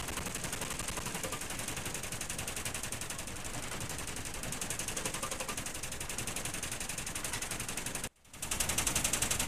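Shipboard general alarm sounding on the icebreaker Polar Star: a rapid, steady train of pulses, several a second, signalling a general emergency for a fire. It breaks off briefly about eight seconds in, then starts again.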